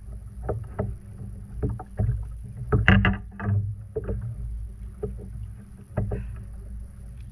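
Irregular knocks and thumps from a freshly landed trout being handled and flopping, over a steady low rumble; a quick cluster of knocks about three seconds in is the loudest.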